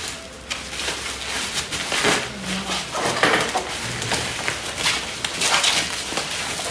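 Plastic bubble wrap crinkling and rustling in irregular bursts as it is handled and pulled off a parcel.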